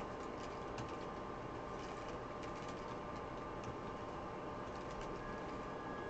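Typing on a computer keyboard: scattered light key clicks, busiest over the first few seconds and thinning out later, over a steady background hum.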